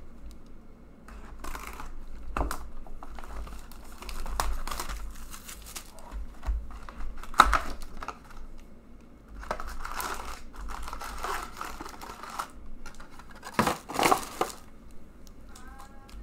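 Plastic shrink wrap being torn and crinkled off a sealed hockey card box, followed by the cardboard lid being opened and the card packs inside being handled, in irregular crinkling and tearing rustles with small clicks. The loudest rustles come a couple of seconds before the end.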